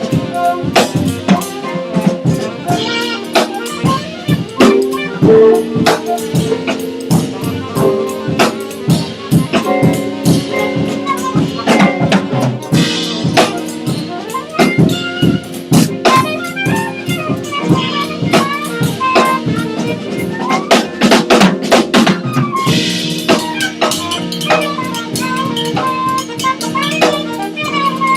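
Small jazz ensemble playing, with a drum kit struck many times a second under held pitched notes from the other instruments.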